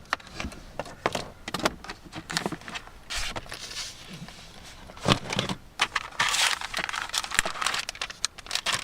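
A run of irregular clicks, knocks and rustling, with a few louder knocks and short bursts of rustle.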